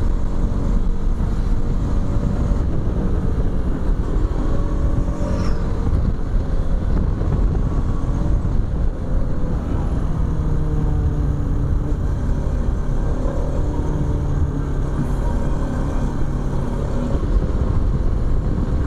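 Bajaj Pulsar RS200's single-cylinder engine running as the motorcycle is ridden along, its pitch drifting slowly up and down with the throttle, under steady wind and road noise on the microphone.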